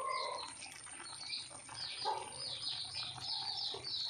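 Small birds chirping in short, repeated downward chirps, which quicken into a rapid run in the second half, with a few brief whistled notes. A faint, steady high-pitched tone runs underneath.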